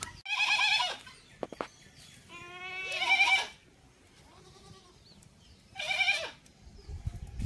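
A farm animal bleating three times with a wavering, quavering voice: a call about a second long, a longer and louder one rising in pitch, and a short one near the end.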